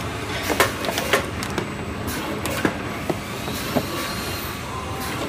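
Cube tissue box packing machine running: a steady mechanical noise broken by several sharp, irregular clacks from its moving parts.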